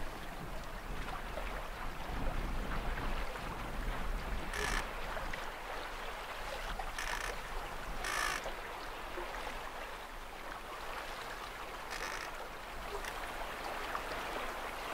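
Water rushing along the hull of a small yacht sailing without its engine, with wind. Over it come four short harsh bird calls, a few seconds apart.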